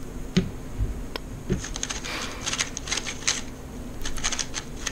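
A 3x3 speedcube being turned fast in a speedsolve: a few single clicks, then a rapid run of plastic clicking and clacking from about a second and a half in.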